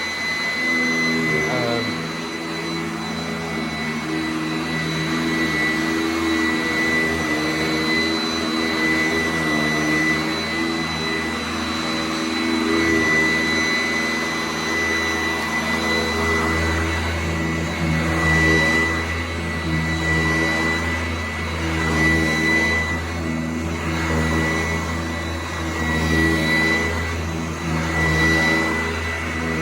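Sanitaire S675 upright vacuum cleaner running while vacuuming, a steady high jet-like whine over a lower motor hum, its loudness swelling and easing every few seconds as it works.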